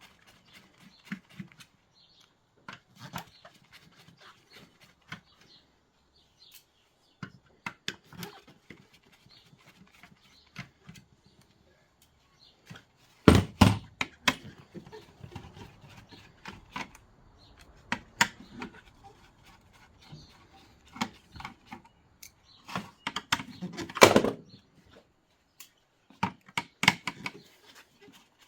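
Screwdriver clicking as screws are taken out of the back of a Dell Wyse thin client, with the metal and plastic casing knocked and handled; a louder clatter of knocks about halfway through and again near the end.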